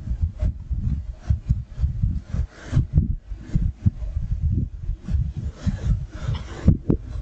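Irregular low thuds and rubbing noise close to the microphone, going on throughout, with a sharp click near the end.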